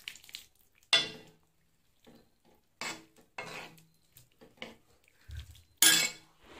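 A steel ladle stirring a thick vegetable kurma, clinking and scraping against the sides of a metal kadai. There are several sharp, ringing clinks; the loudest come about a second in and near the end, with a dull knock just before the last.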